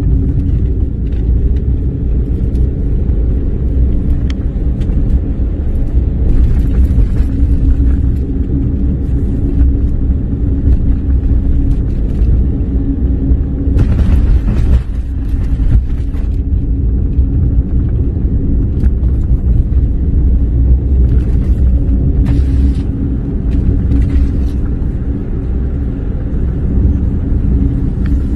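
Car driving, heard from inside the cabin: a loud, steady low rumble of engine and tyres with a steady hum over it. Scattered clicks and knocks come through, with a longer burst of clatter about halfway through.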